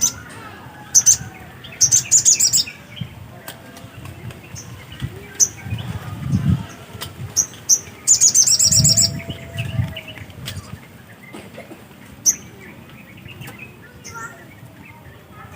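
Little spiderhunter (sogok ontong) calling: sharp, very high chirps scattered throughout, with two fast rattling runs of notes, one about two seconds in and a longer one about eight seconds in.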